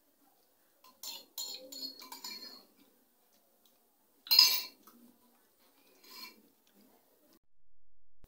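A metal spoon clinking and scraping against a clear bowl of ginataan as someone eats. The sounds come in short clusters, with the loudest about four and a half seconds in.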